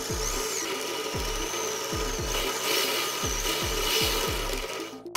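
A power drill with a step bit boring through a sheet-metal cabinet: a wavering motor whine with a cutting hiss from about two seconds in. Background music with a steady beat plays throughout.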